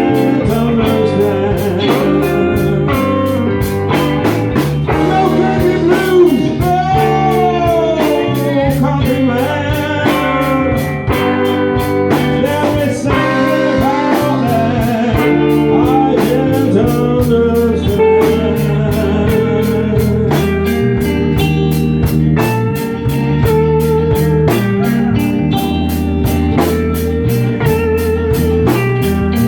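Blues band playing live: guitar over bass and a drum kit keeping a steady beat, with a voice singing.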